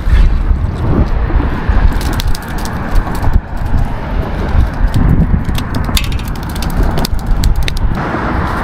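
Steady low rumble of wind buffeting the microphone, with a run of sharp clicks and taps from about two seconds in.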